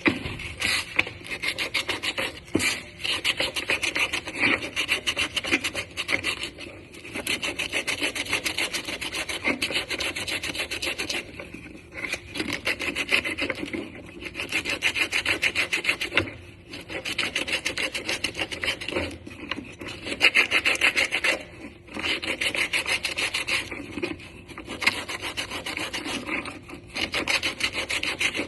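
A ring button being sanded by hand, with quick back-and-forth scratchy strokes. The strokes come in runs of a few seconds with short pauses between them.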